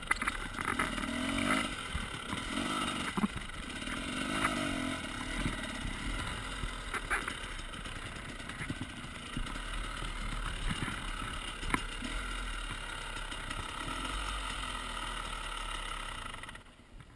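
Husaberg enduro motorcycle's engine running on a forest trail, revving up and down, with scattered sharp knocks and clatter from the bike. The sound drops away abruptly near the end.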